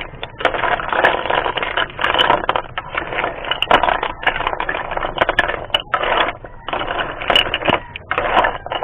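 Metal spatula scraping around a wok and turning spiny spider conch shells, the shells clattering against the metal in irregular strokes with short pauses between them.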